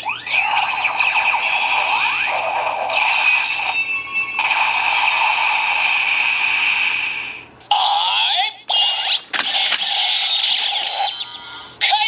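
Electronic finisher sound effects from the speaker of a DX Kamen Rider Ghost Gan Gun Saber toy: a held, shimmering high-pitched charging tone that breaks off briefly about four seconds in and again near eight seconds, followed by shorter electronic blips and a sharp click.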